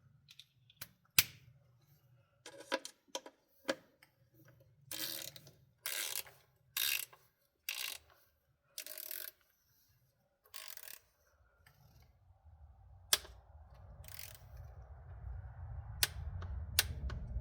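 Hand ratchet clicking in short strokes as the T25 screw holding the filter on a 68RFE transmission valve body is run down, with a few sharp single clicks between. A low rumble builds over the last few seconds.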